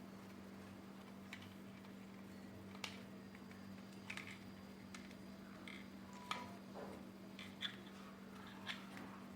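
Light clicks and taps of plastic vacuum-cleaner parts being handled and fitted together, about eight scattered through, over a faint steady hum.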